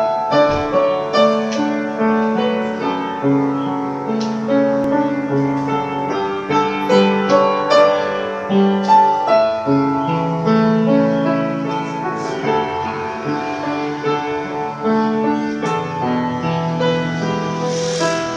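Piano playing a slow melody over held chords.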